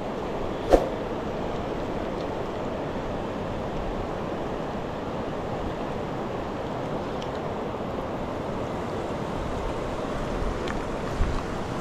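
Seti River water rushing steadily, with a single sharp click about a second in.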